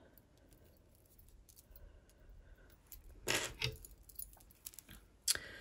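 Small metal jewellery clinking and jingling as it is handled: wire hoop earrings with dangling beads and star charms knocking together in the fingers, in scattered light clicks with a louder rattle about three seconds in.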